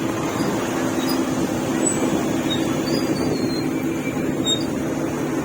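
River ferry's engine running steadily, a constant low drone under a wash of wind and water noise.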